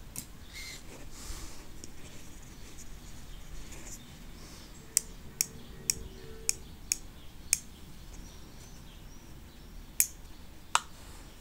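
Light, sharp clicks of a small aluminium iPod shuffle being picked up and handled in the fingers: a run of about six quick clicks around the middle and two more near the end.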